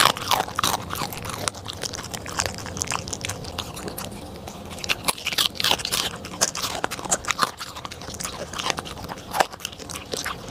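Corgi chewing and licking the last crumbs of food off a plate, picked up close by a microphone on the table: dense, irregular crunching and clicking.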